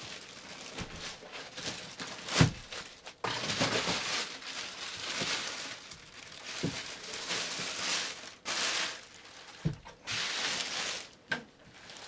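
Thin clear plastic bag crinkling and rustling as it is pulled off a computer case, with a couple of short handling knocks.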